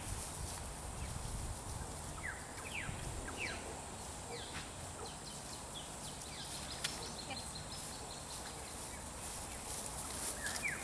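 Birds chirping outdoors: short, quick chirps repeated in loose groups, over a steady high hiss and a low rumble, with one sharp click about halfway through.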